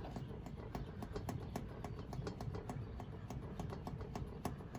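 Quick light clicking, about four or five ticks a second, as the knurled brass knob of a Schrader valve core tool is turned by hand to thread the core back into an air conditioner's pressurised service valve.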